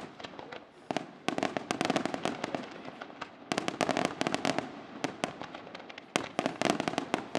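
Aerial fireworks display: rapid volleys of sharp bangs and crackling pops from bursting shells and comet barrages. They come in dense clusters, with short lulls between them.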